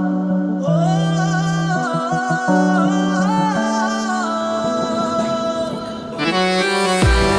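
Drama theme music as a ringtone: a wavering melody with singing over long held bass notes. It grows fuller near the end, with a beat coming in.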